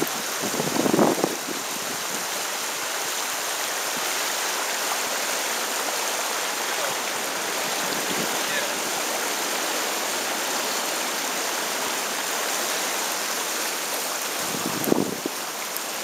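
Shallow river current running over a rocky riffle, a steady rushing. About a second in and again near the end, brief louder rumbles of noise on the microphone.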